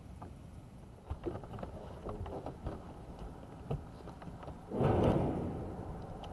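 Light, irregular knocks and taps on a bass boat's deck as the anglers move and fish, with a louder rushing noise about five seconds in that fades over about a second.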